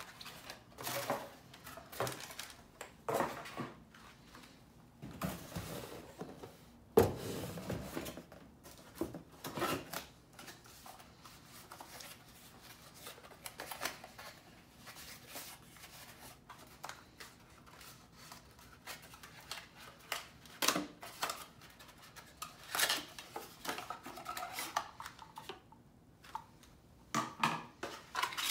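Cardboard packaging and hard plastic vacuum accessories being handled while unpacked: irregular rustles, scrapes and light knocks, with one sharper knock about seven seconds in.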